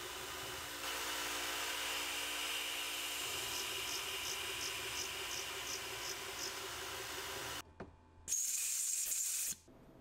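PSF550 CNC milling machine's spindle running while a small thread mill cuts a thread, with the steady hiss of the mist coolant nozzle and a faint ticking about three times a second partway through. Just before the end the sound breaks off, a short loud hiss follows, then it falls quiet.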